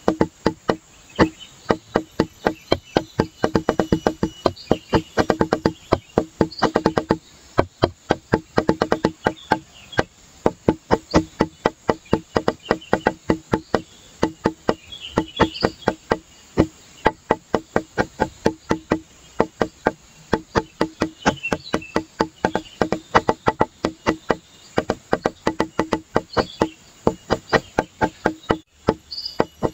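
Background music with a quick, steady percussive beat of knocking, pitched hits, about four a second.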